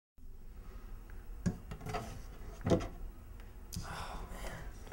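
A few sharp knocks and clicks of a kitchen cupboard door being opened, the loudest about halfway through, followed by a short soft rustle near the end.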